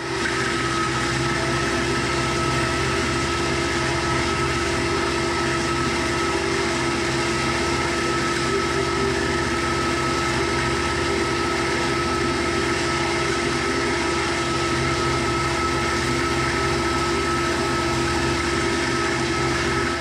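Tractor-drawn strawberry runner cutter running steadily as its cutting heads work through the plants. It makes a constant mechanical drone with a steady whine that does not change in pitch.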